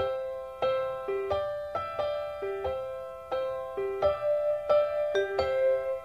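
Solo piano playing the gentle introduction of a soft-pop love ballad: a slow melody of ringing chords, the notes coming closer together in the second half.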